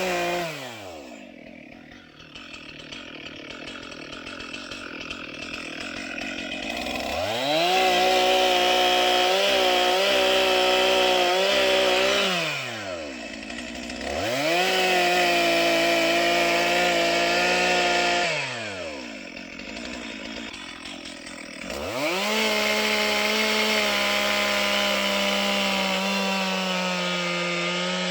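Two-stroke chainsaw revved up to full throttle three times and held there for four to six seconds each time while cutting wood, dropping back to idle in between.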